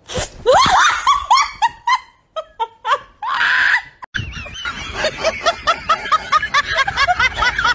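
People laughing and shrieking. Rising pitched cries in the first two seconds and a brief harsh burst about three seconds in give way to a person laughing in a quick, even run of short 'ha' sounds, about three or four a second.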